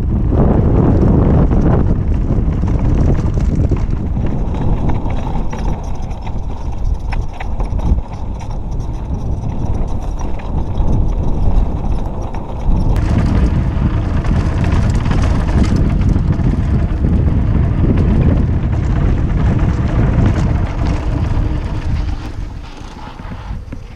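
Wind buffeting the microphone of a camera mounted on a Giant Trance mountain bike, over the rumble of tyres on a dry dirt trail at downhill speed, with the bike clattering and knocking over bumps. The clatter grows louder and sharper about halfway through.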